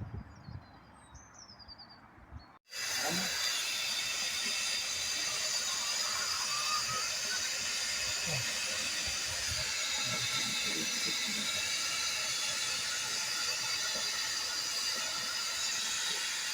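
Faint bird chirps, then, a few seconds in, an abrupt cut to a steady hiss of steam on the footplate of LMS Fowler Class 3F 'Jinty' 0-6-0 tank engine 16440.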